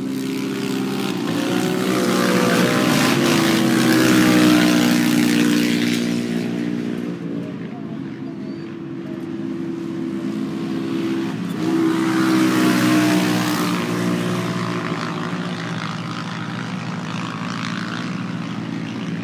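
570-class UTV race engines running around the track, swelling loudest twice, about four and about thirteen seconds in, as the cars pass, over a steady multi-tone hum.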